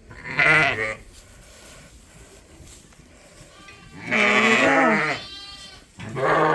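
Sheep bleating three times: one short bleat, then two longer, wavering bleats near the end.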